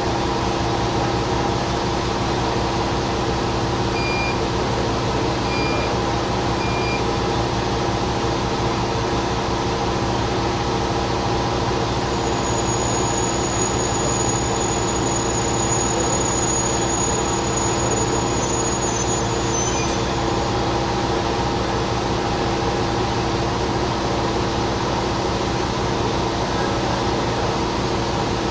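Diesel railcar engine idling steadily while standing at a station. A thin high squeal runs from about 12 to 20 seconds in as a second railcar pulls in alongside, and three short beeps sound about 4 to 7 seconds in.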